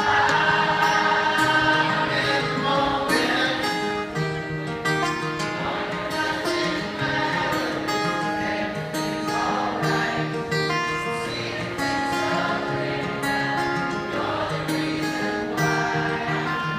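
Live rock band playing, led by strummed acoustic guitar, while the crowd sings the words along with it.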